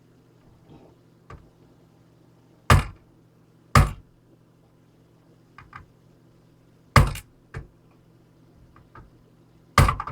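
Hammer blows against an old laptop's case around its hard drive: four loud, separate knocks a few seconds apart, with a few lighter taps between.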